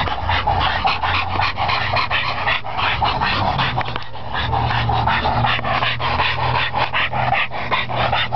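Two pit bull–type dogs playing, panting rapidly with a low growl underneath that grows stronger in the second half.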